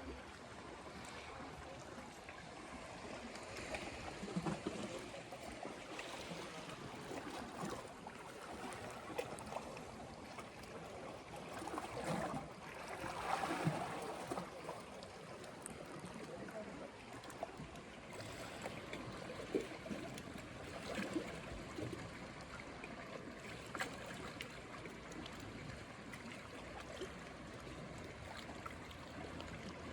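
Calm sea lapping at the shore: a steady wash of small waves, swelling louder for a couple of seconds about twelve seconds in.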